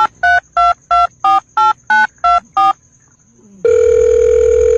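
Telephone keypad dialing tones: a quick run of about nine short two-note beeps at changing pitches, about three a second. After a pause of about a second comes a long, steady, loud tone.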